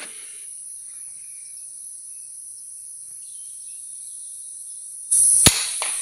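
Steady high-pitched drone of insects, then about five seconds in a sudden loud burst of noise with a single sharp crack: an air rifle shot at a green pigeon in the treetops.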